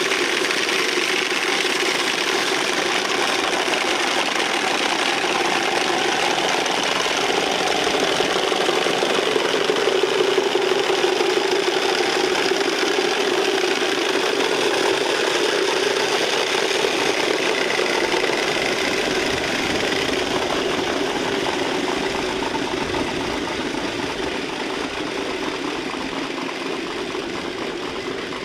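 Many wooden Easter rattles (Klappern) clattering together in a dense, continuous rattle, as a group of rattlers sounds them in place of the silenced church bells. It starts suddenly and eases slightly near the end.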